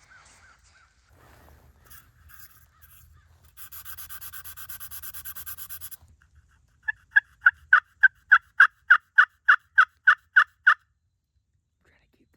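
Turkey hen yelping on a turkey call: a soft, rapid run of notes, then a loud series of about fourteen evenly spaced yelps lasting about four seconds.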